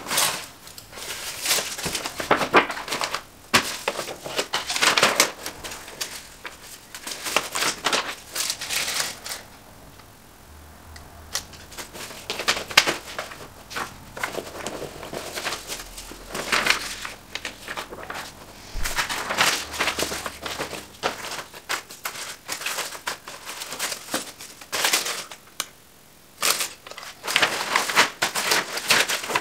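Sheets of paper being handled, shuffled and crumpled: repeated bursts of rustling and crinkling with sharp little clicks, easing off for a moment about ten seconds in.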